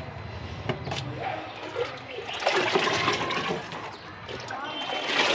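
Liquid poured out in gushes and splashing, twice: once about two and a half seconds in for about a second, and again near the end, with a couple of light knocks about a second in.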